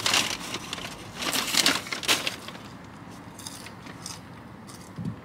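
Crinkling and rustling of takeout food packaging being handled, in irregular bursts that are loudest in the first two seconds and then die down to a few faint rustles.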